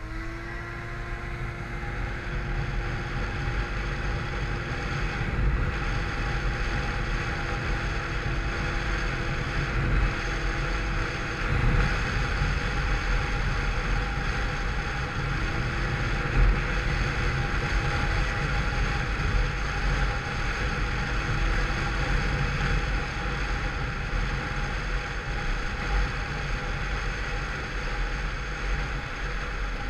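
Peugeot Vivacity 50cc scooter running at steady cruising speed, its engine a faint steady whine under a heavy rumble of wind noise on the microphone. The scooter is derestricted through a modified variator and changed rollers.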